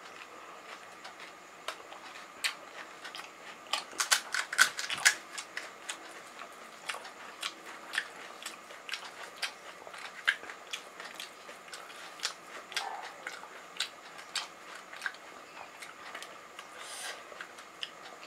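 Crisp fried pani puri shells crunching and cracking: a run of loud crunchy chewing about four seconds in, then scattered small cracks and clicks as fingertips break open fresh puris and press in the filling.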